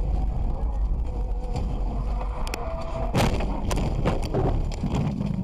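Vehicle road noise with wind on the microphone, a steady low rumble. About three seconds in comes a loud, sudden noisy burst, followed by a couple of smaller ones.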